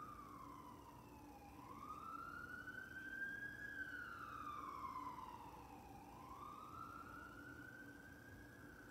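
Faint emergency-vehicle siren wailing, its pitch sliding slowly up and down in long sweeps about every four to five seconds.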